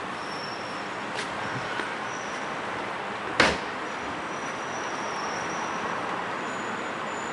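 Steady traffic and street noise around a station at night, with one sharp knock a little past the middle.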